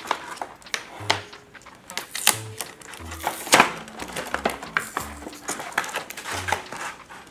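Background music under repeated sharp clicks and clatters of plastic toy pieces and packaging being handled as a toy play-food set is unpacked, the loudest clatter about three and a half seconds in.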